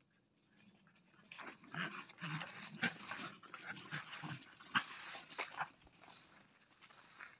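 Puppies playing, giving a rapid run of short dog vocalizations that starts about a second in and dies down near six seconds.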